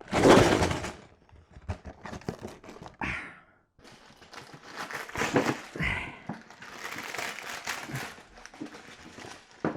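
Cardboard box of a small Lego set being torn and crumpled open, in irregular rustles, scrapes and rips, loudest in the first second.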